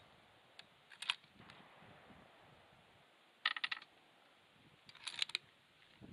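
Metallic clicks and clinks from handling a Browning X-Bolt bolt-action rifle, in three short clusters: about a second in, a louder ringing clatter around three and a half seconds, and another near five seconds.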